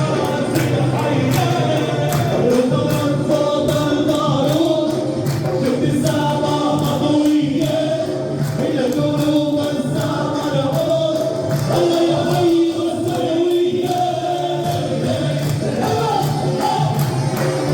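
Loud Arabic wedding music: group singing with a lead voice over a steady, quick percussion beat.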